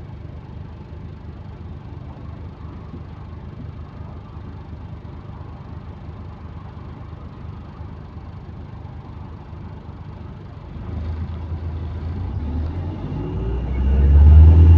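Bus engine with an exhaust leak running with a low, steady rumble, then growing louder about eleven seconds in and louder again near the end as the engine picks up.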